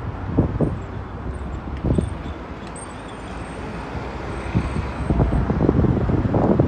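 Wind buffeting the microphone in irregular low thumps, heaviest near the end, over a steady low outdoor rumble.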